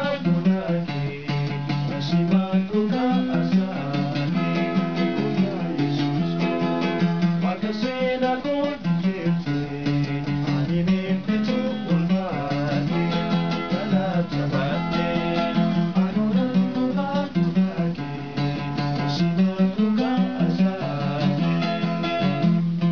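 Two men singing an Oromo gospel song together, accompanied by a strummed acoustic guitar.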